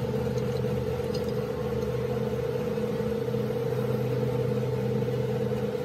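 A steady machine hum, even and unchanging in pitch.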